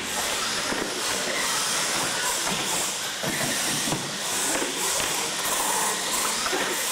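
Radio-controlled monster trucks racing on a concrete floor: a steady hiss of their motors and tyres.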